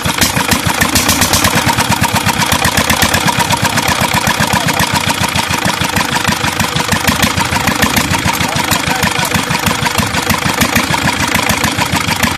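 Peter diesel engine running steadily, loud, with a fast, even chugging beat of firing strokes.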